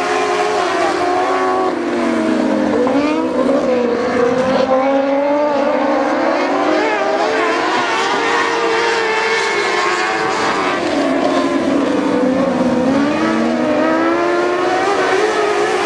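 Dwarf race cars' motorcycle engines running around the track, several at once, their pitch rising as they accelerate and falling as they back off, in sweeps every few seconds.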